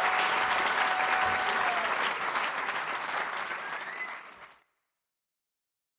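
Concert crowd applauding and cheering, fading out to silence about four and a half seconds in.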